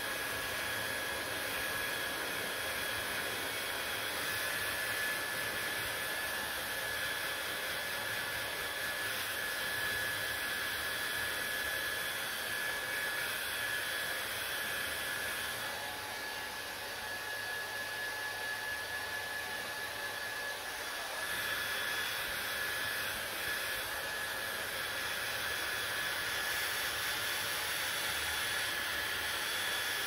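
Handheld hair dryer running steadily: a continuous rush of blown air with a faint high motor whine. The sound dips slightly and shifts in tone for a few seconds around the middle.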